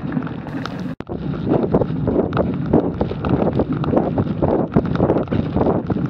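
Wind buffeting the microphone of a camera carried on a moving mountain bike, over a rumble and rattle of knobby tyres and the bike bouncing along a dirt trail covered in dry leaves, with many small knocks. The sound drops out briefly about a second in.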